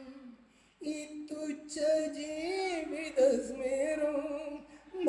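A man singing a line of a Malayalam film song unaccompanied, in long held notes that slide and waver in pitch; he comes in about a second in, after a short pause.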